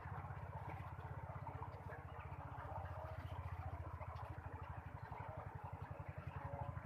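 A small engine running steadily, heard as a rapid, even low throb.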